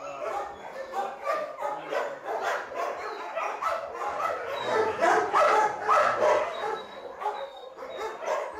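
Several dogs barking and yelping over and over, the calls overlapping several times a second.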